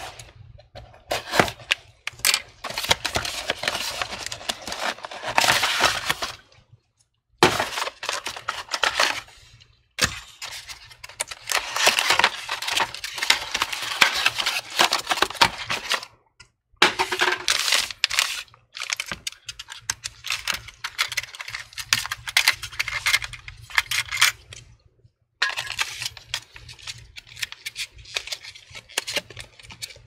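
Crackling and clicking of packaging being handled: the Intel Core i5-9500 processor's cardboard box is snipped open with small scissors and taken apart, and the CPU's plastic clamshell tray crackles as it is handled. The sound breaks off to silence abruptly a few times.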